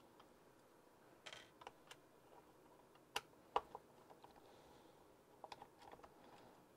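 Faint, scattered clicks and taps of a hex driver and small screws against a plastic RC truck chassis, with two sharper clicks about three seconds in.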